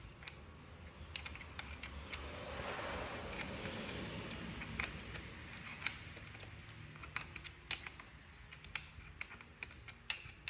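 Small irregular metal clicks and taps of a hand tool loosening the adjustment screw on a folding-bike stem latch, a screw held with Loctite. A soft hiss swells and fades about three seconds in.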